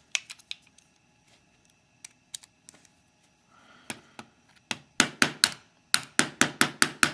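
Clicks and taps from handling a Mauer NW4 euro cylinder lock and its tools: scattered clicks at first, then from about five seconds in a fast run of sharp taps, about five a second.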